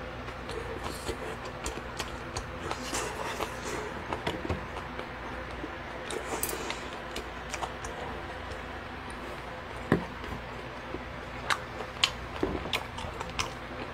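Quiet eating and handling noises: soft chewing and mouth sounds, then several sharp clicks of chopsticks and a plastic food container being handled, mostly in the last few seconds, over a steady low hum.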